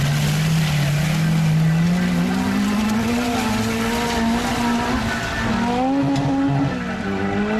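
Compact rally car's engine pulling hard and rising in pitch as it accelerates away on a wet dirt course, its tyres hissing through mud and water. Near the end the engine note steps and dips briefly, as at a gear change.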